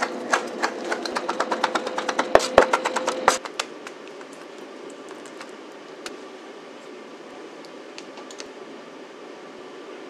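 Kitchen knife quickly chopping sun-dried tomatoes on a wooden cutting board: a fast run of knocks that stops about three and a half seconds in. After that there is only a faint steady background hum with a few light clicks.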